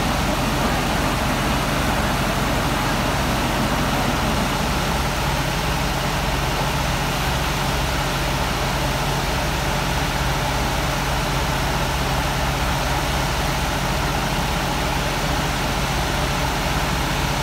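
Heavy diesel engine of the piling equipment running steadily, a loud, even, low drone with no change in pace.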